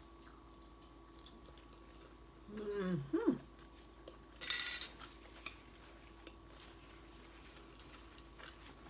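Eating a large burrito: a short hummed 'mm' that falls in pitch about two and a half seconds in, then a brief hissing rustle about a second and a half later and a few light clicks, over a faint steady hum.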